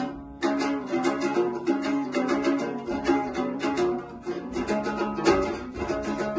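Komuz, the Kyrgyz three-string fretless lute, strummed by hand in a fast, rhythmic folk tune, with a short break just after the start before the strumming picks up again.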